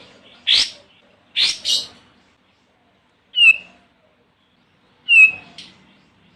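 Olive-winged bulbul calling in short separate phrases: three harsh, scratchy notes in the first two seconds, then two short whistled notes that slide down in pitch, about three and a half and five seconds in.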